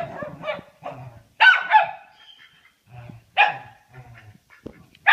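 A dog barking, a string of short barks spaced a second or two apart, loudest about a second and a half in.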